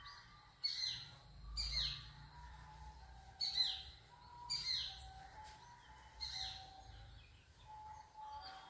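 Bird calling: repeated loud, sharp calls, each sweeping quickly downward in pitch, about six in all, over fainter short whistled notes from other birds.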